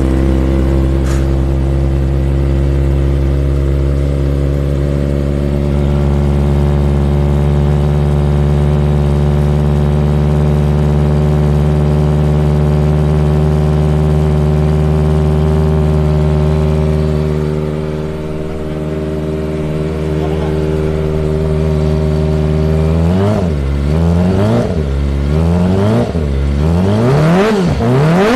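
Kawasaki Ninja ZX-25R's 250 cc inline-four engine idling steadily. From about 23 seconds in, the throttle is blipped repeatedly, the revs rising and falling sharply several times in quick succession.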